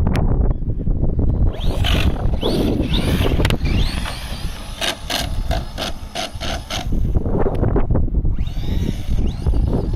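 Team Associated Rival MT10 RC monster truck's brushless electric motor whining as it revs and speeds across grass, with rising whines and a quick run of pulses near the middle. Wind buffets the microphone throughout.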